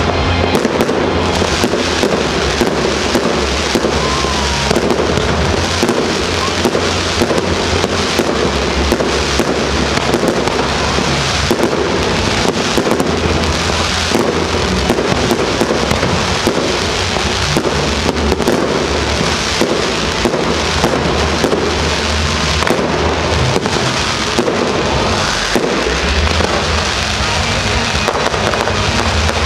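Fireworks display: a dense, continuous run of bangs and crackling bursts with no let-up.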